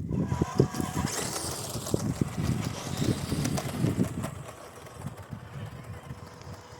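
Small 390 electric motor and gearbox of an MN128 1/12-scale RC crawler truck running in high gear, with its tyres rolling over soft dirt. The sound gets quieter about four seconds in, leaving a faint steady whine.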